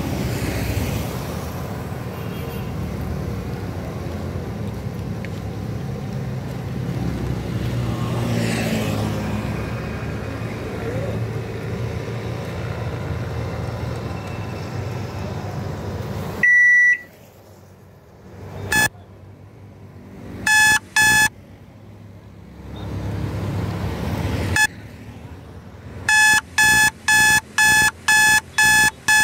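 Street traffic with motorcycles passing for the first half. Then the street sound cuts out suddenly and a loud electronic alarm beeping takes over, first in a few separate beeps, then repeating about twice a second near the end.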